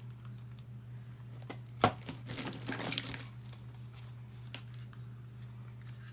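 Toys being handled and rummaged through in a box: a sharp knock about two seconds in, then about a second of crinkling rustle, with a few lighter clicks, over a steady low hum.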